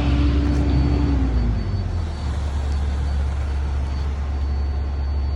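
A motor vehicle driving past on the road over a steady low rumble: its engine note drops in pitch about a second and a half in as it goes by, then the sound eases off.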